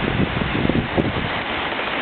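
Rushing whitewater of a river rapid: a steady, loud rush of water, with gusty low buffeting on top that dies down about halfway through.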